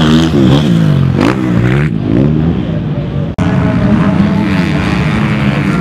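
Motocross motorcycle engines revving, their pitch rising and falling several times as the throttle is opened and closed, broken by a sudden short gap about three and a half seconds in.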